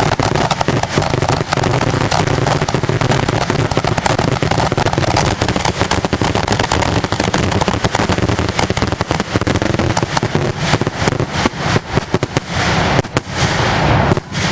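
A fireworks finale barrage heard close to the launch site: a dense, continuous rapid fire of shell bursts and crackle, thinning into separate bangs near the end.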